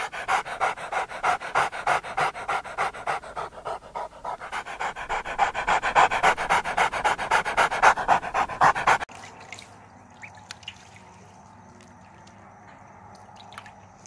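A large husky-type dog panting quickly and rhythmically, about three to four breaths a second, getting louder toward the end. It cuts off suddenly about nine seconds in, leaving only faint background noise with a few light clicks.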